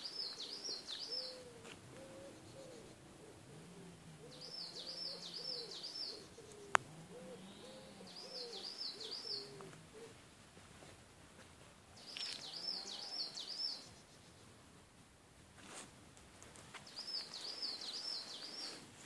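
A small songbird whistling a short, high phrase of three or four quick sweeping notes, repeated five times about every four seconds. Low cooing from a pigeon runs underneath, and there is one sharp click about seven seconds in.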